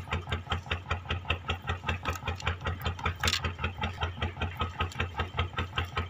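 A fishing boat's engine idling steadily, with an even low throb of about six beats a second.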